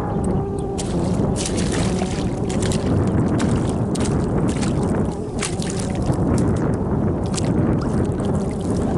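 Strong wind buffeting the microphone, with many short clicks and knocks scattered through it.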